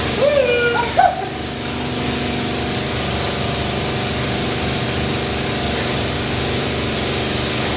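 Coin-operated jet wash pressure washer running steadily, its pump humming under the hiss of the high-pressure spray. A brief voice cries out in the first second.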